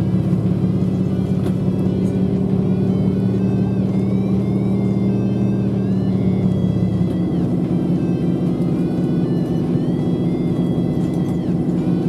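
Route bus heard from inside the passenger cabin while moving: a steady engine drone made of a few low tones, whose pitch shifts about seven seconds in as the engine changes speed.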